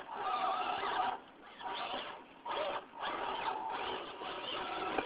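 Electric motor and gear drivetrain of a Losi Night Crawler RC rock crawler whining in spells as the throttle is worked, its pitch wavering as it climbs onto rocks.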